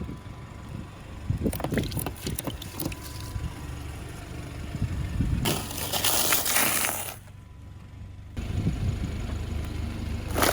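A car's tyres rolling slowly over objects and crushing them over the low rumble of the running engine: a run of crackling crunches, then a louder noisy stretch of about two seconds midway, and a sharp crack at the very end.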